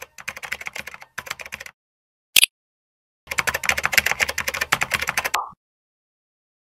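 Computer keyboard typing sound effect: rapid key clicks in two runs of about two seconds each, with a single sharp click between them.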